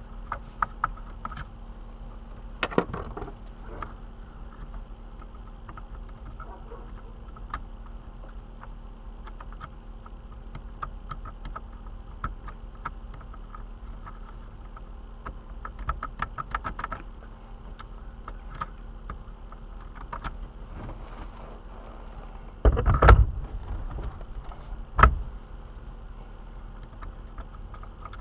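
Hand tools working on a van's steering column: scattered small metal clicks and ticks, with a louder clatter about 23 seconds in and a single sharp knock about two seconds later, over a steady low hum.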